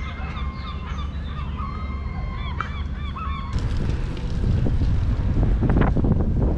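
A flock of waterfowl calling, many short overlapping calls. About halfway through they cut off abruptly and give way to a louder, steady rumble of wind on the microphone.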